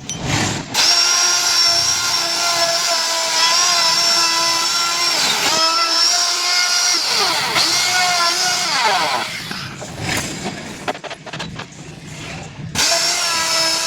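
High-speed electric carving tool running and cutting a decorative design into wood, a steady high motor whine that sags and wavers in pitch under load. It stops about ten seconds in, with a few knocks, and starts up again near the end.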